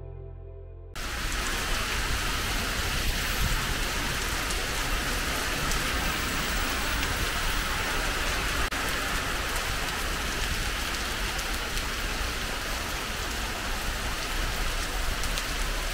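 Heavy tropical downpour, a cloudburst, pouring onto a street and pavement as a steady, even hiss of rain. It cuts in suddenly about a second in, after fading background music.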